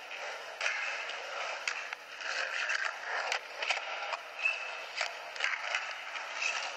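Skateboard wheels rolling and scraping on concrete, with scattered clicks and knocks from the board, heard thin and tinny as it plays back through a camcorder's small speaker.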